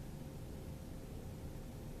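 Steady background hiss and low hum with a faint steady tone; no distinct event is heard.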